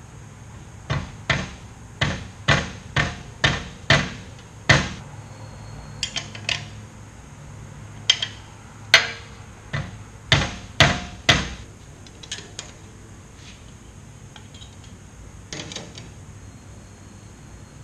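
A hammer tapping on the metal blade-guide assembly of a Klutch 4x6 bandsaw to knock the guide into position: about eight sharp taps in quick succession, then more in small groups, and a few fainter ones near the end.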